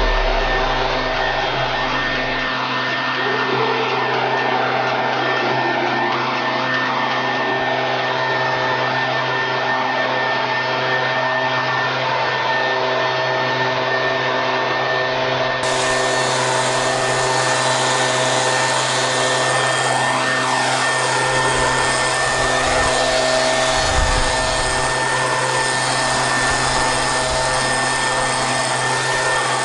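Leaf blower running steadily, blowing grass clippings off concrete.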